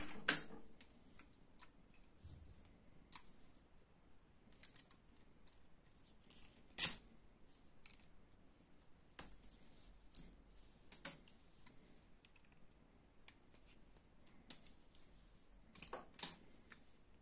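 Insulated copper wire being handled and cut at a workbench: scattered light clicks and rustles, with a few sharp snaps, the loudest about seven seconds in and another near the end.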